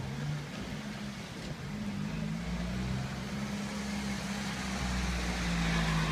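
Cockle Train heritage train running slowly, its engine droning with notes that shift up and down, and a low rumble building from about halfway through as it gets moving.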